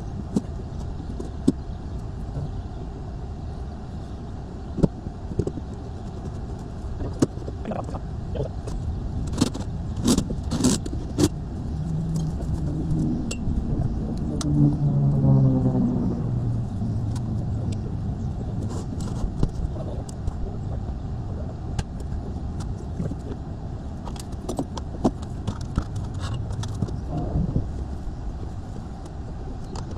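Outdoor work-site sounds: a steady low rumble, with scattered sharp clinks and knocks like tools or metal parts being handled, a cluster of them about a third of the way in. Around the middle, a motor's hum swells for a few seconds and fades.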